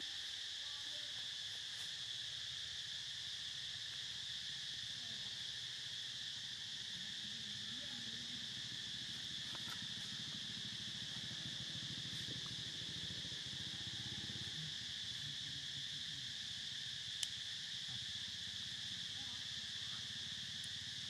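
A steady, unbroken high-pitched insect drone, with a faint low rumble beneath it and one sharp click about seventeen seconds in.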